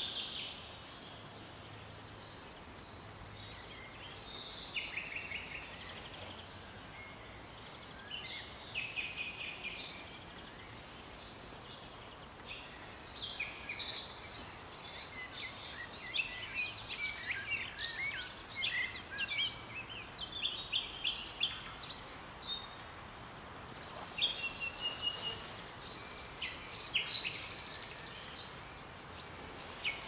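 A nightingale and other songbirds singing in a run of short, varied phrases and trills, over a steady background hiss.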